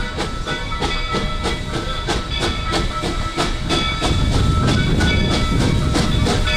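Steam-hauled passenger train on the move, heard from a coach: a steady low rumble with a regular beat about four times a second and thin, high, steady tones above it. The rumble grows louder about four seconds in.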